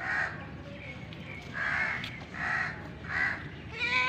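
Four short, harsh bird calls, each about half a second long, the first at the start and the rest about a second and a half to three seconds in. Near the end a cat begins a drawn-out meow.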